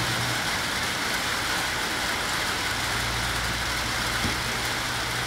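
Steady low hum of an idling engine under an even outdoor hiss; the hum fades for about two seconds near the start and then comes back. A single soft thump about four seconds in.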